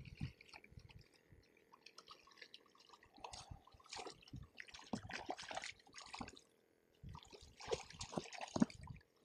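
A hooked redfish splashing at the water's surface beside a kayak as it is brought to the net, in irregular bursts that are busiest about four to six seconds in and again near the end.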